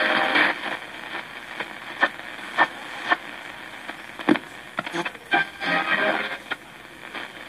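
Century IV shortwave receiver's speaker giving hiss and static as the dial is turned between stations, with many short blips and brief snatches of signals as stations sweep past. A station's music drops away in the first half second.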